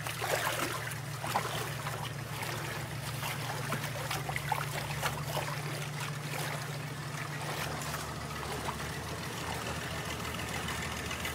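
An engine runs steadily with a low hum, while water sloshes and splashes as wet black sand is worked by hand in a tub.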